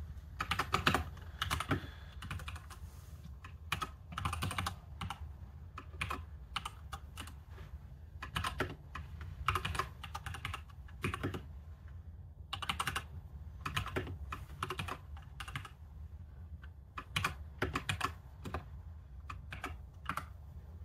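Computer keyboard being typed on, with short runs of keystroke clicks separated by pauses of a second or so.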